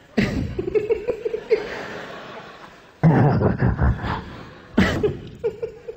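A person laughing and chuckling in several separate bursts, each starting abruptly.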